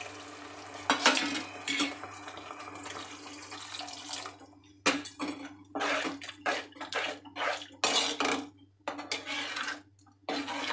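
Metal ladle stirring watery egg gravy in an aluminium pot. A steady simmering hiss with two sharp knocks of the ladle about one and two seconds in, then from about five seconds quick, irregular sloshing and scraping strokes with clinks against the pot.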